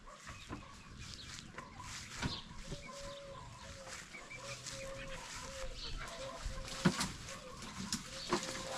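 Chickens clucking, with a short call repeated over and over, and a few sharp knocks.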